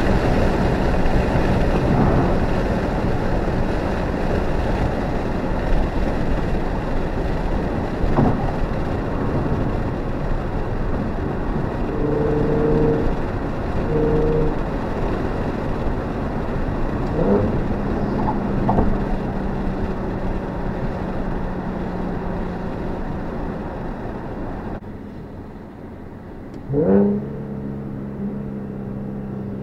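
Nissan 370Z's 3.7-litre V6 with a custom exhaust, heard from inside the cabin while cruising: a steady engine drone over road noise. The engine pitch rises a few times under acceleration, with one brief loud rev near the end.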